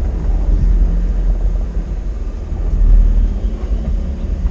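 1996 Mitsubishi Minicab mini dump truck driving along slowly in four-wheel-drive low range, its engine running with a steady low rumble.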